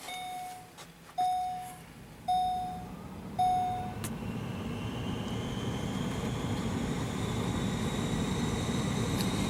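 VW Eurovan's dashboard warning chime dinging four times, about once a second, then stopping. The heater blower fan then comes on and runs steadily, its whine slowly rising.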